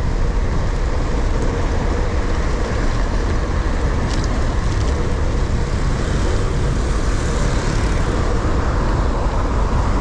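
Steady road and traffic noise of a bicycle ride, heard through a GoPro action camera's microphone as a constant rumble heaviest in the low end, with one brief tick about four seconds in.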